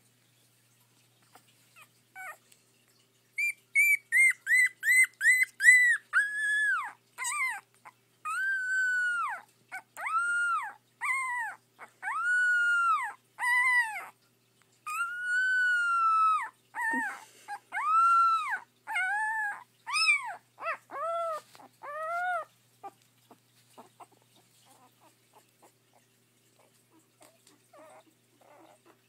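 Young puppy howling. A run of quick, high yips gives way to a string of longer high-pitched howls, each rising and then falling in pitch. The calls stop about three quarters of the way through.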